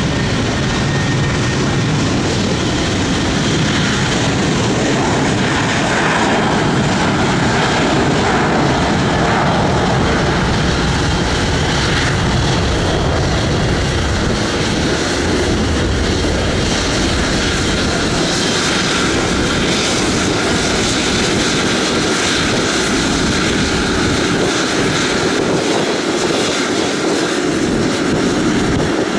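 Jet engines of a Boeing 777 airliner running, a steady, loud roar as the plane rolls along the runway.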